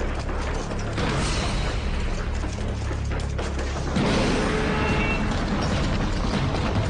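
Film sound effects of mechanical clanking and rattling over dramatic background music. It gets louder about four seconds in, as a big metal compound gate swings open.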